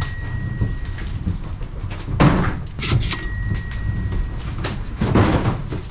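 Cardboard boxes being set down and shoved along the floor of an enclosed cargo trailer, with footsteps and hollow knocks on the trailer floor and walls. The loudest knocks come about two seconds in and again near five seconds.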